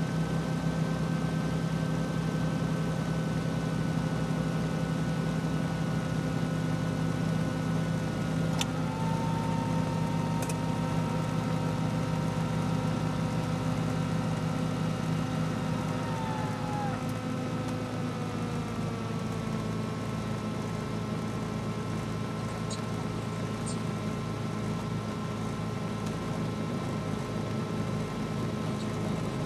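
Cessna 310's twin piston engines running steadily at low taxi power, heard inside the cabin. The engine note settles slightly lower about two-thirds of the way through as power comes back.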